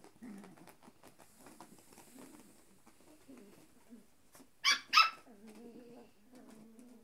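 Puppy play-growling as it tugs at its toys, with two sharp yaps in quick succession about two-thirds of the way in, then a steadier low growl.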